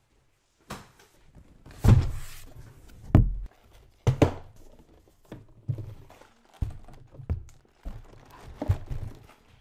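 Cardboard LEGO set boxes being lifted out of a shipping carton and set down in a stack on a desk: a string of about ten dull thunks with cardboard rustling and sliding between them, the loudest about two and three seconds in.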